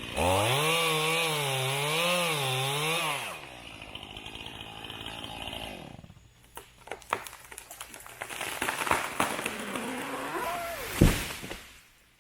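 Chainsaw running at full throttle under load for about three seconds, its pitch wavering as it cuts, then dropping back to a lower run. After that come a series of sharp snaps and knocks and one heavy thud near the end.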